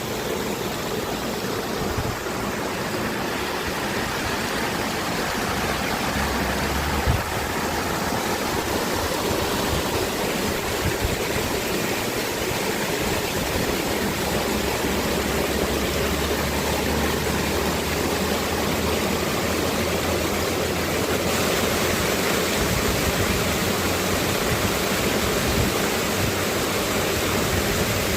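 Heavy rain falling, a steady rushing hiss throughout, with a single knock about seven seconds in.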